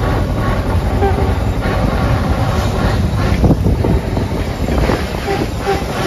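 Pre-1905 veteran car driving along: a steady low rumble of engine and road noise, with wind buffeting the microphone.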